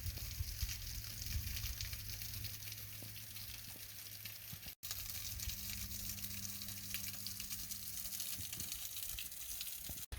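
Steady outdoor hiss with a fluctuating low rumble, like wind on the microphone, broken by a brief dropout about halfway through.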